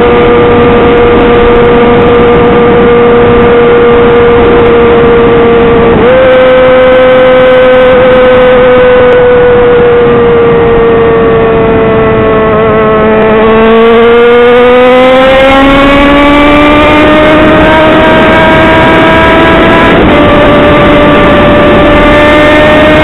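Yamaha XJ6 inline-four engine running loud through an exhaust with its baffle removed, on a moving bike. The engine note holds steady, jumps up sharply about six seconds in and sags slowly. It then climbs for several seconds and drops back a step near the end.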